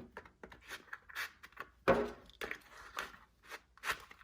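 Handmade leather belt sheath and gear being handled: a string of irregular rubs, taps and light knocks, the loudest about two seconds in and again near the end.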